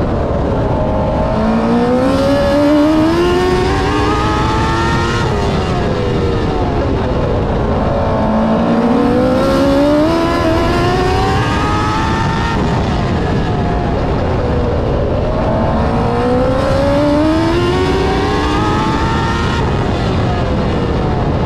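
TQ midget race car's engine at racing speed, heard from onboard: it climbs in pitch as it accelerates down each straight and drops as the throttle lifts for the turns, three times in a lap-by-lap rhythm, over steady wind and tyre rumble.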